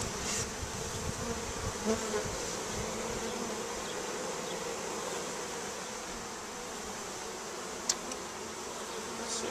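A wild honey bee colony buzzing as a steady hum, the bees smoked back and clustered on their exposed comb. One brief light tick sounds about eight seconds in.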